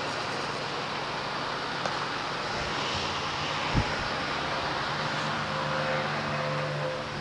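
Steady mechanical background noise with a low hum, a light click about two seconds in and a single thump a little before four seconds.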